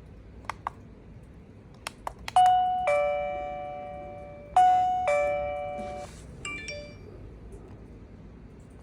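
Electronic doorbell chime playing a two-note ding-dong, a higher note then a lower one, twice: the second cut off about six seconds in. A few sharp clicks come before the first chime, and a quick run of short high beeps follows the second.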